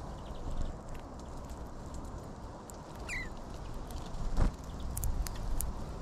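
Small birds feeding on seeds right beside the microphone: steady outdoor background noise with faint scattered pecking clicks, a short falling chirp about three seconds in, and a sharp knock about four and a half seconds in.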